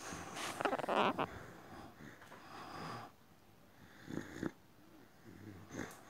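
Boxer dog breathing noisily through its short snout, with a louder stretch about a second in and a few short breaths later.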